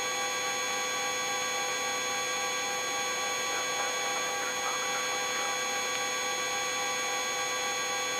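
Eurocopter EC135 helicopter's cabin noise during the final descent to landing, heard through the intercom audio feed as a steady, unchanging hum with several high, steady tones over it.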